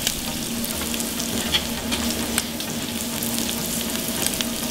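Shrimp in oil in a cast-iron skillet and chicken on a charcoal grill grate sizzling steadily, with scattered small crackles and pops. A steady low hum sits underneath.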